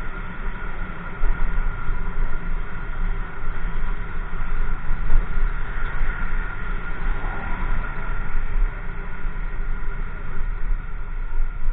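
Motorcycle riding noise from a helmet-mounted microphone: wind buffeting the microphone over the steady drone of the engine, with a steady whine.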